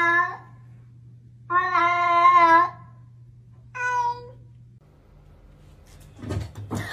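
Domestic cat meowing: a long, even meow trails off at the start, another long meow comes about a second and a half in, and a short, higher meow follows around four seconds in. A brief burst of noise comes near the end.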